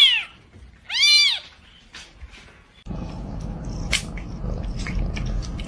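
A cat meowing twice, each meow rising and then falling in pitch, the second about a second after the first. From about three seconds in there is a low rumble with scattered sharp clicks.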